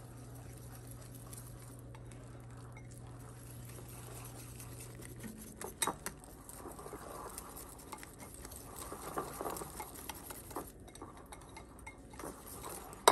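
Wire whisk beating pancake mix, milk and egg into a thick batter in a bowl, the wires scraping and clicking against the bowl's sides, busiest in the second half. A steady low hum stops about five seconds in, and a sharp knock comes at the very end.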